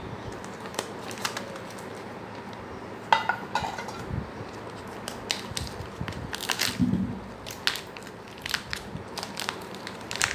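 Packaging being handled: crinkling and crackling with scattered clicks and taps, the loudest click about three seconds in.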